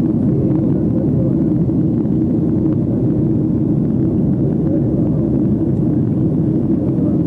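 Steady low cabin rumble of a Boeing 757-200 in flight, heard from inside the cabin: engine and airflow noise, even and unchanging.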